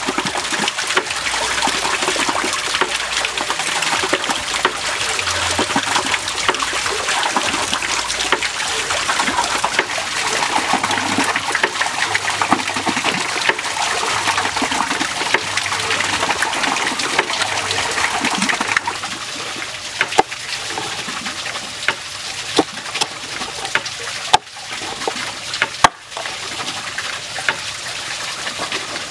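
Muscovy duck cooking in a lidded wok over a charcoal fire, a dense sizzling, crackling hiss. About two-thirds of the way through the hiss drops away, leaving a quieter background with scattered clicks and taps.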